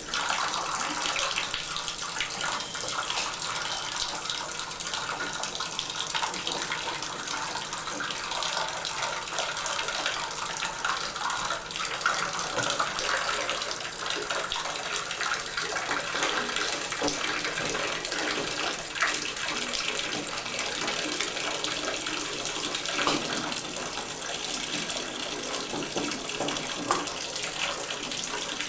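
Water running steadily from a tub and shower valve into the bathtub as the opened handles drain the water left in the valve after the supply has been shut off.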